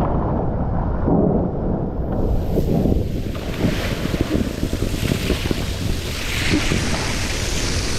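Wind buffeting the microphone as a tube rider slides down a water slide, with rushing water under the tube. From about two seconds in, a loud hiss of water spraying over the slide's wet surface joins in.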